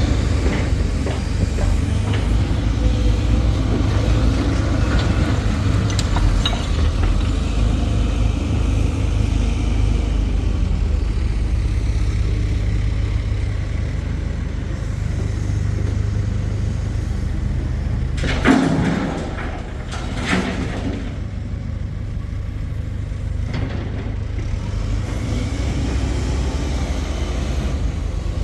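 Digger engine running with a steady low rumble, with a short louder burst of noise about eighteen seconds in.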